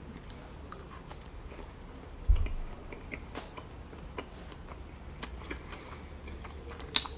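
Close-miked chewing and mouth sounds of a person eating sushi, a scatter of small wet clicks. A single low thump comes a little over two seconds in.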